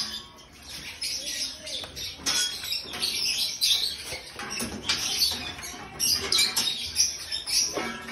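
Dogs eating from stainless steel bowls: irregular clicking and chewing.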